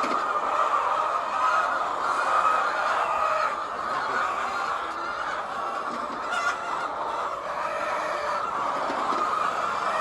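A large flock of laying hens clucking and calling together: many overlapping voices in a steady chorus.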